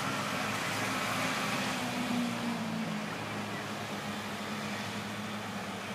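Farm tractor engine running steadily as it drives along the street, a low hum whose pitch dips slightly about halfway through.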